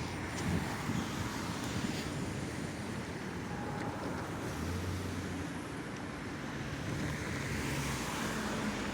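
CSX freight train rolling past, a steady noise of its wheels on the rails with a few faint knocks.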